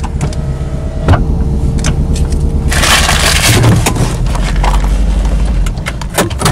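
Car engine running as the car pulls in and parks, with scattered clicks and knocks. About three seconds in, a loud crunching noise lasts for about a second.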